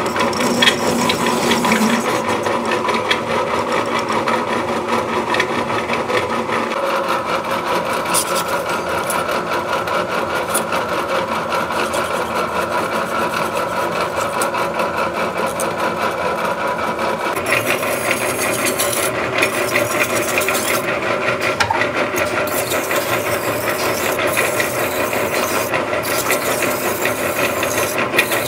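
Metal lathe running, with a hacksaw blade held against the spinning external threads of a hydraulic cylinder part, scraping steadily to clean and deburr the threads. The scraping turns brighter and harsher about two-thirds of the way through.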